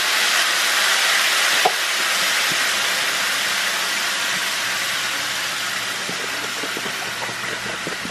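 Coconut cilantro cream sauce sizzling as it is poured into a hot pan of fried red snapper: a steady hiss that slowly dies down, with one light click about a second and a half in.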